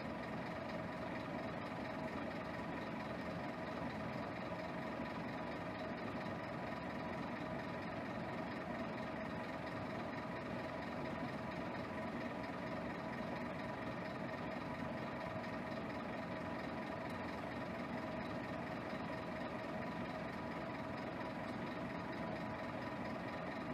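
Diesel bus engine idling steadily, the engine of a 2010 Scania K280 city bus.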